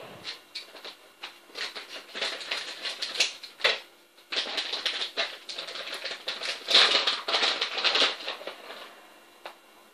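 Plastic packet of shredded mozzarella crinkling and rustling in quick, irregular crackles as more cheese is shaken out over the dish. The crackling is loudest about seven to eight seconds in and dies away shortly before the end.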